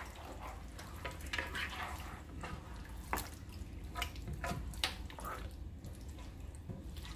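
Chunks of goat meat being turned and mixed into a wet spice paste in a pot with a spatula: irregular wet squelches and sharp clicks of the spatula against the pot, over a steady low hum.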